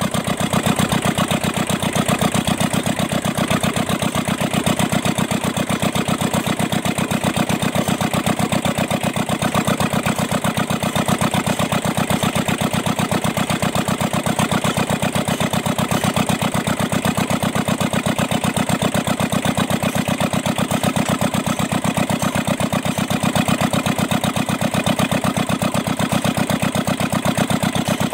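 Kubota two-cylinder diesel engine idling steadily with a fast, even firing beat, its valve tappet clearances freshly set in a tune-up.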